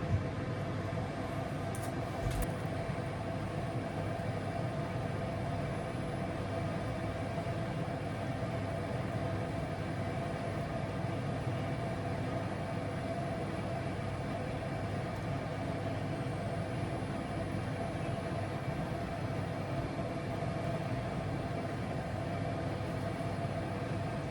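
Steady machine hum: an even rush of noise with a constant tone running under it, unchanging throughout, with a faint click at the start and another about two seconds in.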